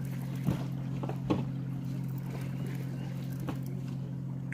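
Steady low hum of a running engine, with two sharp knocks about half a second and just over a second in.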